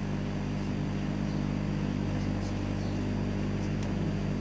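A bare microwave-oven magnetron and its high-voltage transformer running, giving a steady electrical hum and buzz while it drives plasma in a light bulb.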